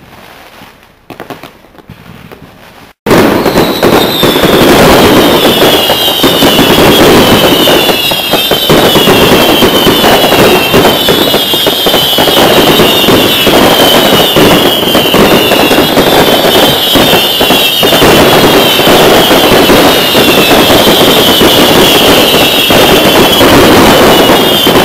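Fireworks display: a few scattered pops, then about three seconds in a sudden, very loud and dense barrage of bursts and crackling that keeps on. A high whistle falling in pitch repeats about every second and a half through it.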